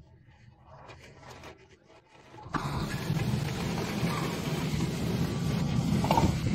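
Loud thunderstorm noise, wind buffeting the microphone with rain, cutting in suddenly about two and a half seconds in after a quieter start.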